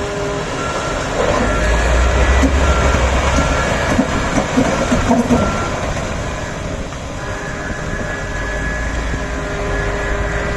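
Komatsu PC4000 hydraulic mining excavator working hard, its bucket scraping and clattering against poorly blasted, solid rock with a heavy low rumble. A reversing alarm beeps repeatedly through the first half.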